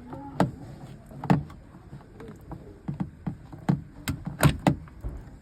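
Irregular sharp clicks and knocks from hands and tools working on a car door's handle parts, about seven of them, coming more closely together in the second half.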